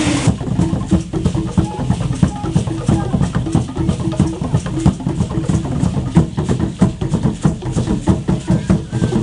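Music of fast drumming: rapid, steady drum strikes with a deep, driving beat.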